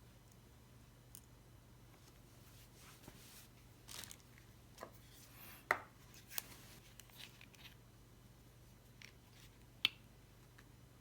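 Scattered small clicks and taps from handling small tools and parts during a watch repair, with two sharper clicks about six and ten seconds in.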